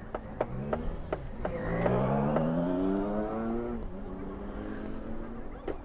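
A motor vehicle's engine accelerating, its pitch rising for about two seconds and then dropping away, over a steady low hum. Short metallic clicks of spanners on the brake master cylinder fittings come throughout.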